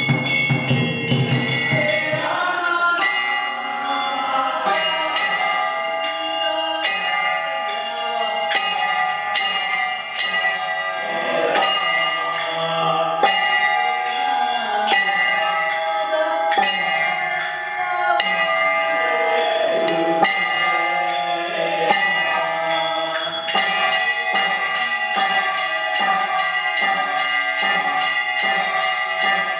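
Hindu temple puja bells and drum from a motor-driven bell-and-drum machine, struck in a fast, even beat, with ringing bell tones held over the strikes.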